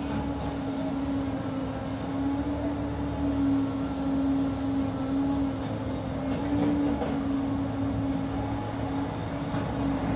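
Diesel engines of an excavator and a dump truck running steadily: a constant low drone with one steady hum riding above it.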